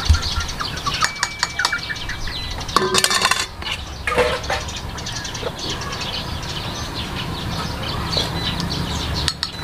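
Metal utensils clinking against a cooking pot, with a louder clatter about three seconds in, and chickens clucking in the background.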